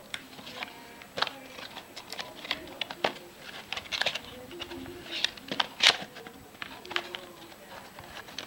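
Cardboard packaging being handled and opened: irregular sharp clicks, taps and rustles as the box's end flap is worked open and the inner tray slid out, with the loudest snap about six seconds in.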